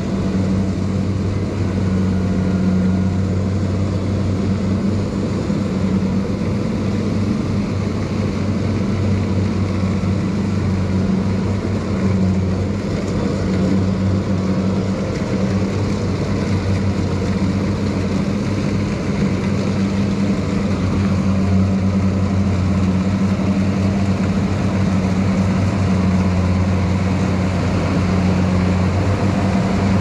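Rice combine harvester running steadily, its engine a low, even drone that holds one speed throughout.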